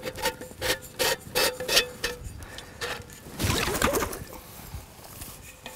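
A metal camp mug clinking and ringing as it is handled, with a few light knocks about three a second over the first two seconds, then a scraping rub about three and a half seconds in as it is set into the campfire.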